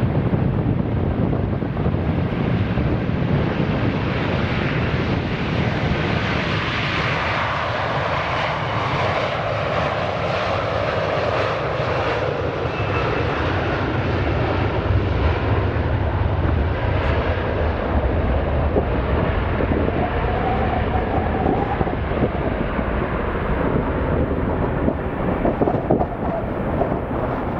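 Airbus A330-300 twin-engine jet airliner at takeoff thrust, rolling down the runway and lifting off: a steady loud jet engine roar whose hiss swells for several seconds as it passes, with uneven buffeting near the end.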